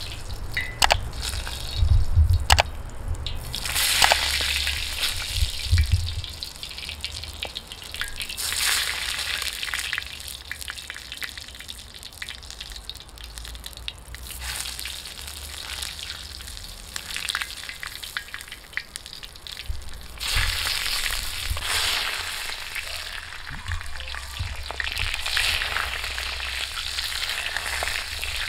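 Whole eggplants frying in hot oil in a wide iron pan over a wood fire: a steady sizzle that swells several times as more eggplants are laid in. A few low thumps come in the first seconds.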